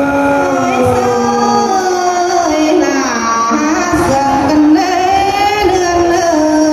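Traditional Tai (Thái) folk singing, amplified through a microphone and PA: long drawn-out phrases of held notes that slide slowly up and down in pitch.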